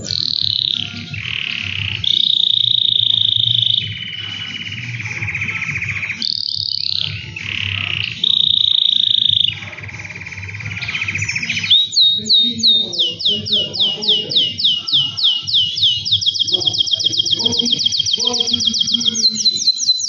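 Male canary singing: long held whistled notes and rolls, then from about twelve seconds in a rapid series of repeated falling notes that speeds into a fast, even trill.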